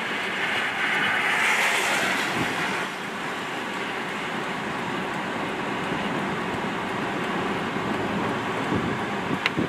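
Steady wind noise buffeting the microphone, with a passing car's tyres hissing on the wet highway, loudest from about one to three seconds in. A short high chirp near the end.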